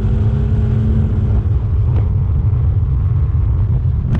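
Aprilia Tuono V4 motorcycle running at a steady cruise, its V4 engine note low under heavy wind rumble on the onboard microphone.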